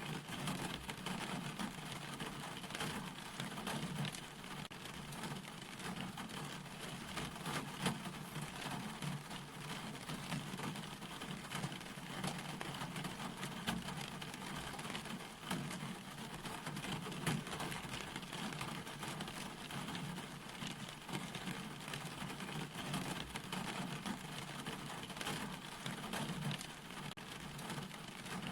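Steady rain falling, a continuous hiss full of small drop ticks as it hits a surface.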